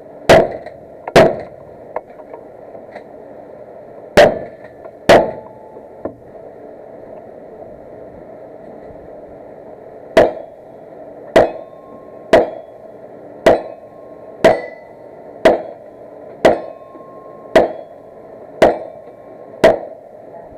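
A string of fourteen gunshots from a shooter working through a stage: two quick pairs of shots near the start, a pause of about five seconds, then a steady run of ten shots about one a second.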